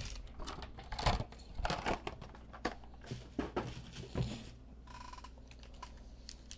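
Trading card boxes and foil card packs being handled on a table: rustling and crinkling with a few light knocks, dying down after about four seconds. A short beep sounds about five seconds in.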